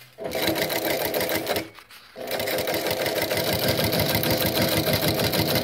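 New-Tech GC-0303 walking foot industrial sewing machine, driven by its servo motor, stitching through thin leather: a fast, even stitching rhythm in two runs, with a brief stop about a second and a half in.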